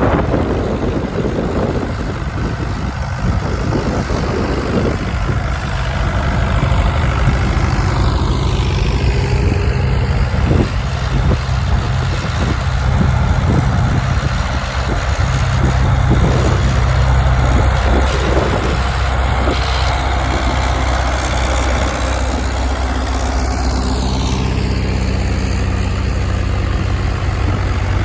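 Vintage tractor engine running, its speed changing a few times.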